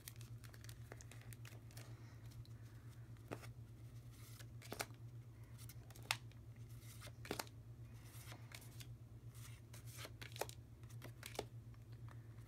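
Paper journaling cards handled and flipped through by hand: faint rustling of card stock with a few sharp clicks and snaps spread irregularly, over a low steady hum.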